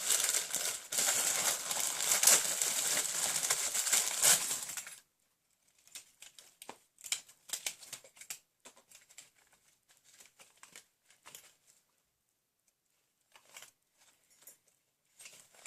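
Packaging crinkling loudly as a utility belt is unwrapped, for about five seconds. It then drops to scattered soft rustles and small clicks, with a brief hush a few seconds before the end.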